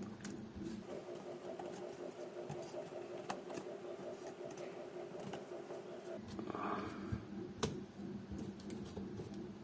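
Faint clicks and light handling of small parts as a phone display's flex cable is fitted to its board connector, over a steady low hum.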